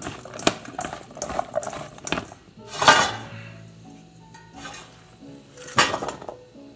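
Diced zucchini tossed by hand in a stainless steel mixing bowl, the bowl clinking and knocking, with the loudest knock about three seconds in, then the pieces tipped out into a round metal pan with a clatter near the end. Background music with held notes plays underneath in the middle.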